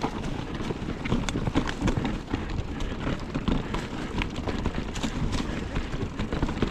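Mountain bike rolling fast over rough, rocky ground, its frame and chain rattling with a steady run of irregular knocks and a low rumble.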